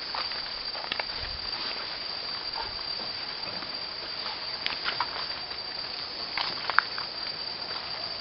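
Steady high-pitched drone of insects in tropical forest, with scattered light clicks and scuffs from people walking on the path.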